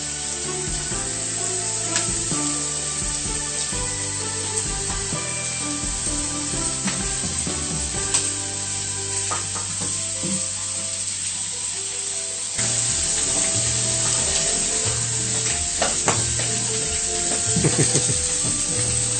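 Sirloin steaks sizzling on an electric griddle, a steady frying hiss. Background music plays along with it and gets a little louder about two-thirds of the way through.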